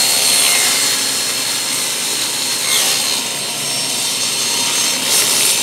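Table saw running and crosscutting a piece of plywood on a crosscut sled, a steady saw noise with its pitch dipping briefly about three seconds in.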